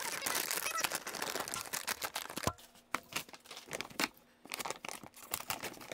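Plastic coin bank bag crinkling and rustling as it is handled and opened at the top, a run of irregular crackles that is busiest in the first couple of seconds and thins out afterwards.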